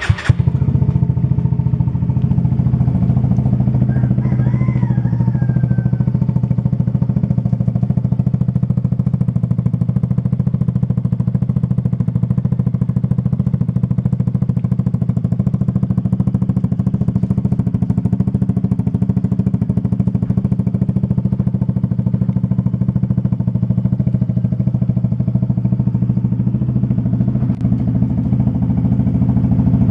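Yamaha Tricity scooter's single-cylinder engine idling steadily through a Nob1 Titan Series aftermarket exhaust with the dB killer removed, loud and even.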